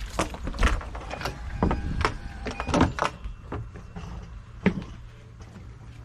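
Irregular knocks and clicks of handling and movement, over a low steady hum.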